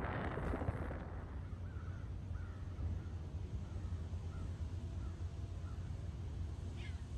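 Wind buffets the microphone for about the first second. Then a bird calls over and over in short, evenly spaced calls, about two a second, over a low steady rumble of wind.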